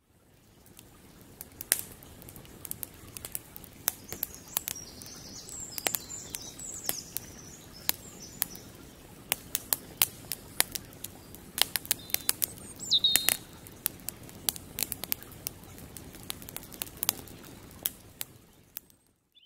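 Wood campfire crackling, with many sharp, irregular snaps over a soft steady hiss. Birds chirp faintly a few seconds in and again past the middle.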